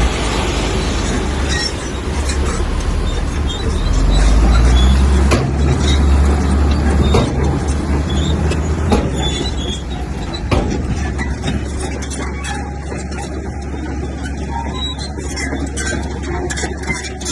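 Heavy diesel earthmoving machinery running under load, with squeals and several sharp clanks. It grows somewhat quieter in the last few seconds.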